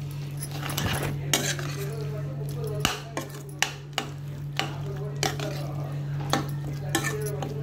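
A metal utensil stirring a capsicum and egg mixture in a steel pan, scraping and clinking against the metal about one or two times a second. A steady low hum runs underneath.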